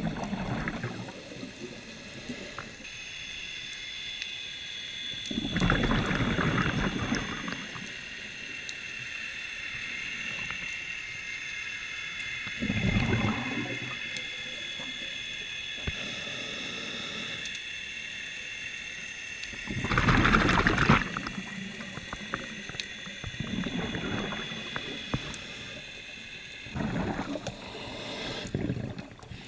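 Scuba regulator exhaust heard underwater: the diver's exhaled bubbles gurgle out in noisy bursts every several seconds, the strongest at about 6 and 20 seconds in. Beneath them a steady high whine runs from about three seconds in.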